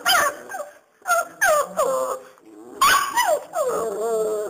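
Five-week-old bandog puppies (Serbian Mastiff x Boxer) whimpering and yelping while they play: several short high cries that fall in pitch, then a longer drawn-out whine near the end.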